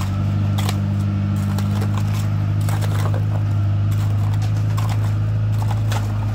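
Diesel engine of an Ajax self-loading concrete mixer running steadily with a deep hum, with irregular knocks and clatter over it.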